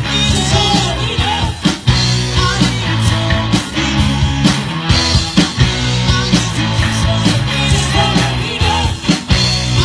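Live rock band playing through a PA: electric guitars and a drum kit, with steady drum hits over a bass line.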